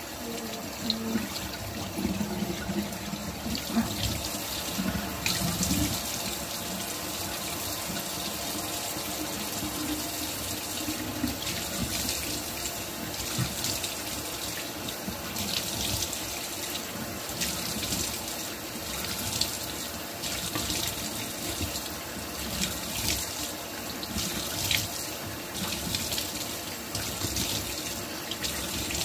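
Bathroom tap running steadily into a sink while water is scooped up in cupped hands and splashed onto the face, with irregular splashes over the flow, as a face mask is rinsed off.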